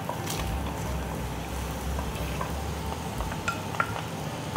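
Salted butter sizzling as it melts in a hot enamelled pan over the browned chicken fond, stirred with a wooden spoon, with a few light clicks of the spoon against the pan.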